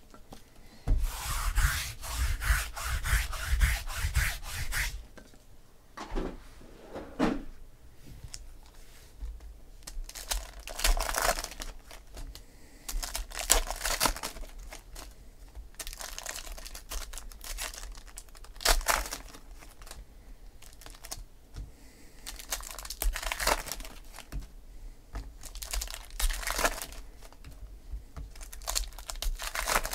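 Foil trading-card packs being torn open, their wrappers crinkling and rustling. A dense stretch of tearing and crinkling begins about a second in and lasts some four seconds, followed by shorter bursts of crinkling every few seconds.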